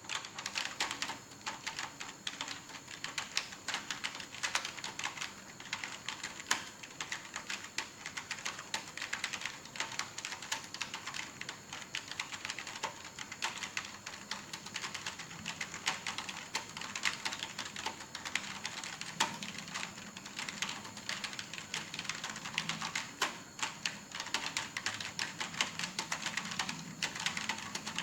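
Computer keyboard typed on quickly and continuously, a steady stream of keystroke clicks several per second.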